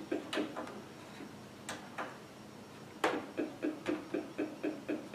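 Rhythmic electronic ticking, about four short buzzing ticks a second, with a break of about two seconds in the middle before it starts again. It comes from a faulty Mattel Aquarius home computer that has crashed and will no longer boot.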